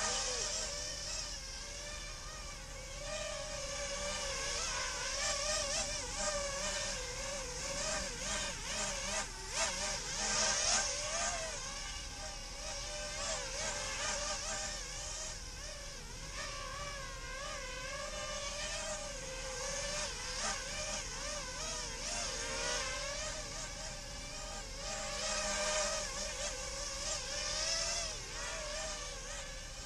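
XHover Stingy's small electric motors whining, their pitch wavering up and down as the speed keeps changing.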